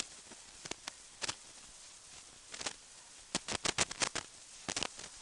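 Scattered sharp clicks and clinks of nuts and hand tools being handled while a hub puller is fitted to a car's rear hub, with a quick run of several clicks a little past the middle.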